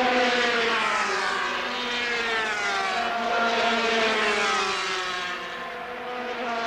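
250cc two-stroke Grand Prix racing motorcycles running at high revs as several go past in turn, each engine note falling in pitch.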